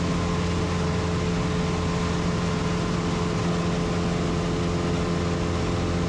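Super Decathlon's four-cylinder Lycoming engine and propeller droning steadily at climb power, heard inside the cockpit.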